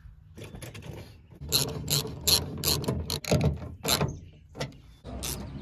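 Hand socket ratchet clicking in quick runs of strokes as a bolt on a car door's window regulator is worked, starting about a second and a half in.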